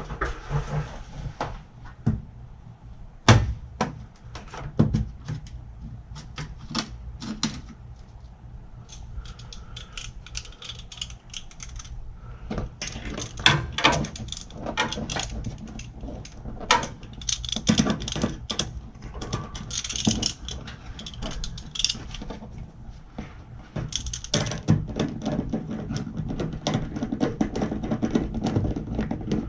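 Tools and parts being handled during a repair: irregular clicks, knocks and light rattles, with a steady low hum underneath.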